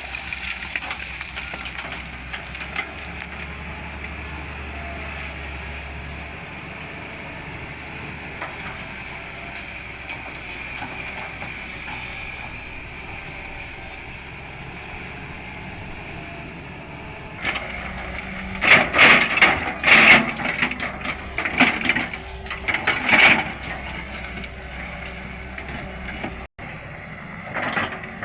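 Sany 210 hydraulic excavator working, its diesel engine running steadily. About two-thirds of the way through, a run of loud, irregular clanks and crunches comes for several seconds, with more near the end.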